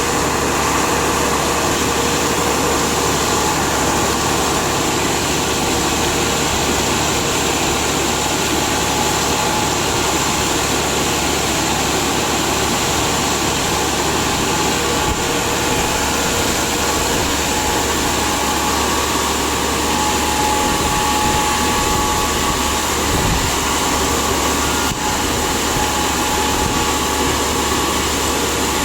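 A reverse circulation drilling rig running: loud, continuous engine and machinery noise with a steady high hiss and a few faint whines over it.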